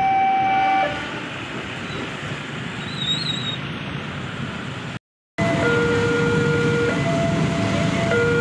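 Electronic warning alarm alternating between two tones, stopping about a second in, over the rolling rumble of a departing passenger train. After a brief break, a railway level-crossing alarm cycles between two tones over the loud rumble of a train passing the crossing.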